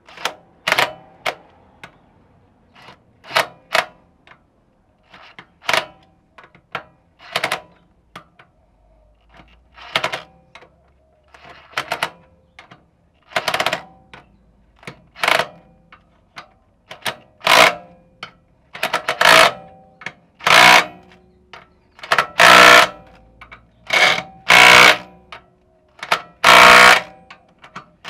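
A handheld power driver on a socket runs in about twenty short bursts, tightening the nuts on the kingpin's top bearing cap a little at a time to draw the cap and bearing home. The bursts grow longer and louder toward the end as the nuts get tighter.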